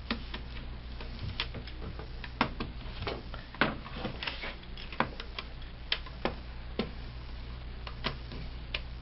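Fingernails picking and tapping at the plastic screen bezel of a Dell Latitude D830 while peeling off the sticky screw-cover dots: a string of irregular light clicks, over a low steady hum.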